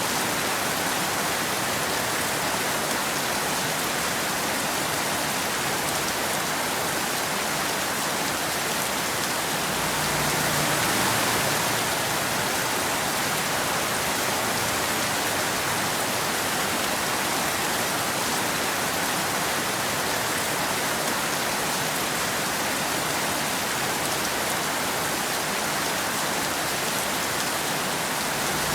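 Steady rain falling, an even hiss with no thunder, swelling slightly about ten seconds in.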